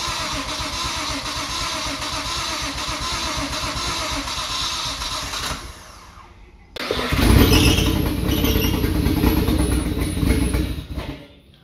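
Car engine running steadily. After a brief drop, a louder, deeper run of engine sound starts about seven seconds in and stops near the end.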